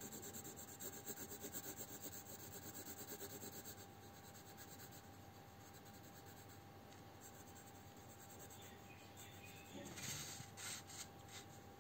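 Pencil shading on paper: faint, quick back-and-forth scratching strokes, fading for a while in the middle and picking up again with a few firmer strokes near the end.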